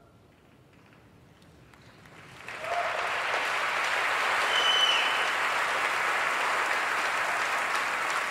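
A large audience bursts into applause after about two seconds of near quiet, the clapping swelling quickly and then holding steady.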